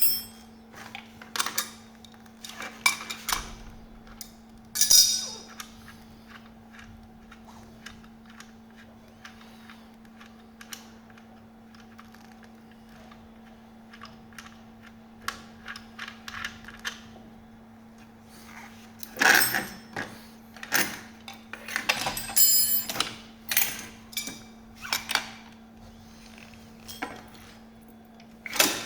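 Hand tools and small metal parts being handled: scattered clicks, clinks and knocks, coming thicker in quick runs about two-thirds of the way in, over a steady low hum.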